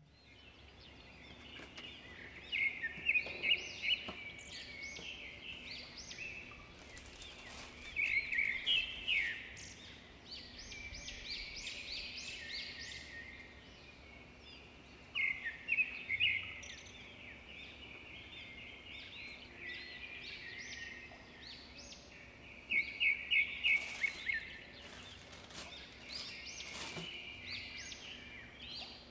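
Birds chirping in bursts of quick, high notes, several times over, with a few faint clicks and rustles in between.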